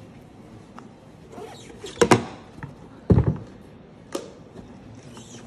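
Handling noises as a steel-bracelet watch on its cushion is worked loose in its presentation box: a few sharp knocks and clicks, a double one about two seconds in, a louder cluster a second later and a single one near four seconds, with soft rustling in between.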